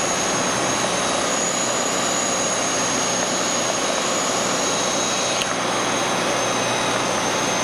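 Steady drone of a light sport aircraft's engine and propeller with air rushing over the canopy, heard inside the cockpit in flight. A thin, steady high whine sits on top of the even noise.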